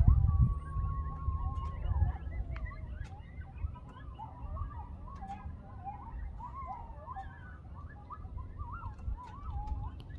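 A group of coyotes howling and yipping: one long held howl at the start, then a chorus of short, wavering yips and howls. A low rumble on the microphone is loudest at the very start.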